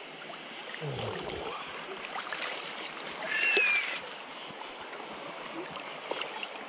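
Water splashing and sloshing as a hooked trout is brought into a landing net, over the steady rush of the river. A brief high-pitched tone sounds about halfway through.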